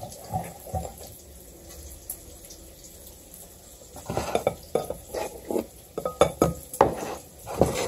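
Whisk and utensils clattering against a mixing bowl: two knocks near the start, then from about four seconds in a quick, irregular run of clinks and knocks as the whisk is worked.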